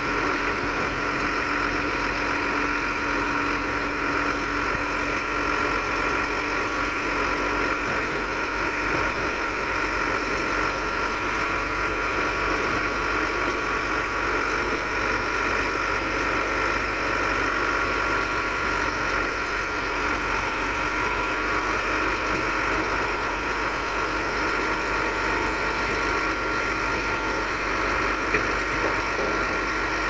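Heavy earthmoving machinery's diesel engine running steadily, with a constant high whine over the engine noise.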